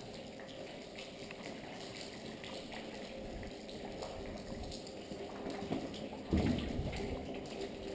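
Footsteps and gear rustle of a person walking over a wet, puddled, debris-strewn concrete floor, with scattered small clicks and splashes. There is one louder thump a little after six seconds in.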